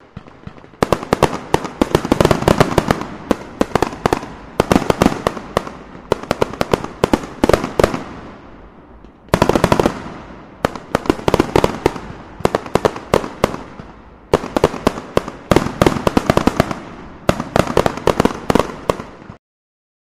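Fireworks going off: dense volleys of sharp bangs and crackles. They come in waves that start suddenly about a second in, again near halfway and twice more later, each thinning out before the next, and they cut off abruptly shortly before the end.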